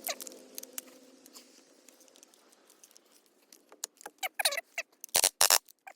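Clicks and clacks of hard parts being handled and fitted on an AK-74-style airsoft carbine. They come sparse at first, then grow denser, with a few loud clacks near the end.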